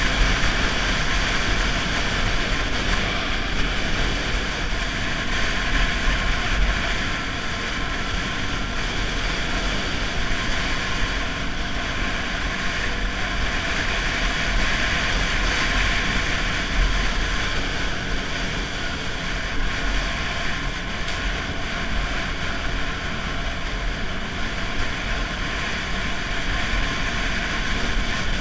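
Snowmobile riding at a steady speed: engine and track running steadily at an even level, with wind noise on the machine-mounted microphone.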